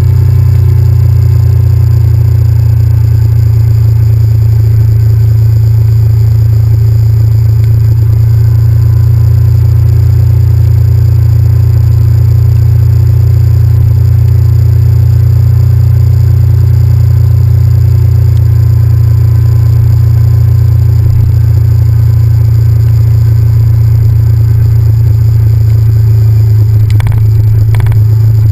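Honda VTR1000F's 90-degree V-twin engine and wind noise on a GoPro riding along at a steady speed, heard as a loud, steady, muffled low rumble. A couple of brief knocks near the end.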